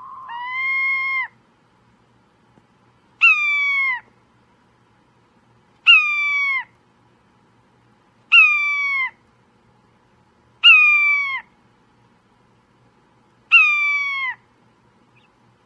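A caged bird giving a loud, meow-like call over and over: six drawn-out calls about two and a half seconds apart. Each call starts abruptly and slides slightly down in pitch.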